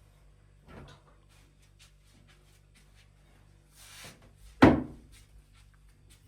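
A single sharp knock about four and a half seconds in, like a cupboard door or drawer shutting, after a few quieter handling sounds, with a faint steady low hum underneath.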